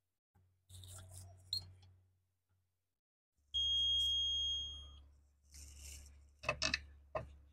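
A single steady, high-pitched electronic beep lasting about a second and a half, from a multimeter's continuity tester as its probes touch the smart key module's circuit board. Light clicks and rustles of the probes being handled come before and after it.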